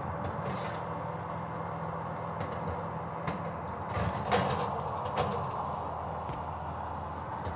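Metal baking tray knocking and scraping as it is slid onto an oven's wire rack, with a few short clatters and the loudest knock about four seconds in, over a steady low hum.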